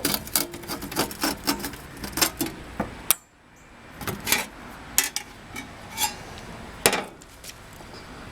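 Quick metallic clicks, taps and clanks of hand tools and parts in a heat pump's electrical compartment as the run capacitor is got at for testing, with a brief gap about three seconds in and one louder clank near the end.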